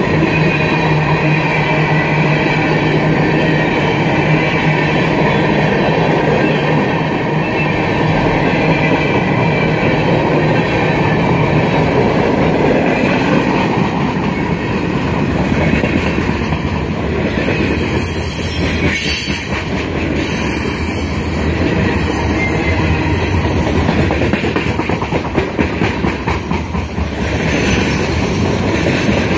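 Freight cars rolling past close by: a steady rumble and clatter of steel wheels on the rails.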